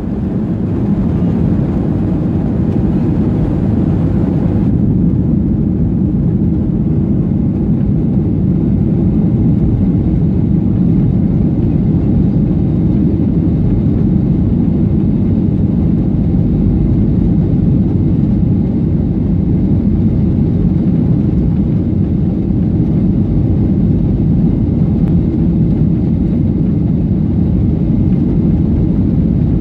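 Boeing 737-800's CFM56 jet engines and the rumble of the airframe rolling along the ground, heard inside the passenger cabin, a steady low drone. A higher hiss on top of it stops about five seconds in.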